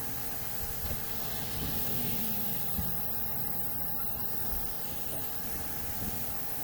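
Hot air rework station blowing a steady hiss of air, with a faint steady hum underneath, while it reflows the solder on a replacement HDMI port's pins.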